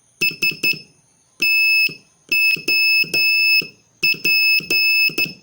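Morse code practice tones: a high-pitched beep keyed in short dots and longer dashes, spelling the word STOP (three dots, one dash, three dashes, then dot-dash-dash-dot).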